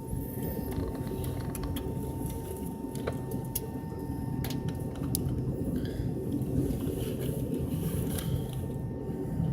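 Airliner cabin ambience in an MD-83 at the gate: a steady low rumble with a faint steady whine, and scattered small clicks and knocks from the cabin.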